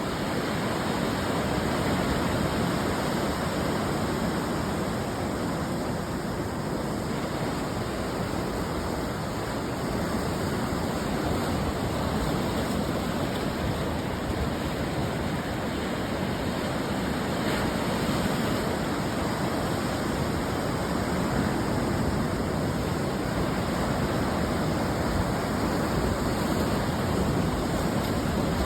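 Ocean surf washing onto a beach: a continuous rush of breaking waves, swelling and easing gently in loudness, with no distinct single crash.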